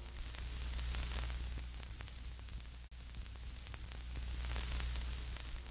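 Television-style static hiss with a steady low hum beneath it, broken by a brief dropout about halfway through.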